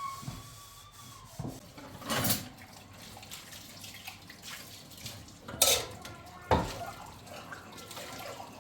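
Water splashing in a few short bursts: one about two seconds in, then two close together near the end.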